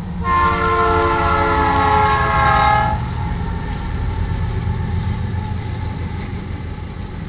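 Lead GE Dash 9-44CW diesel locomotive's air horn sounding one long blast of about three seconds, several notes together, its pitch dropping near the end as it passes the crossing. Then the steady rumble of the locomotives and freight cars rolling by.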